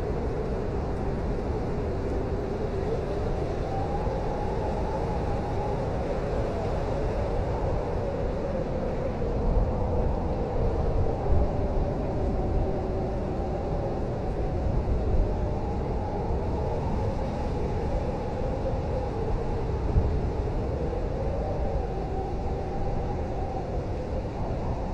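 Blizzard wind howling steadily: a wavering, whistling moan over a low rumble, with a few louder gusts about halfway through and again near the end.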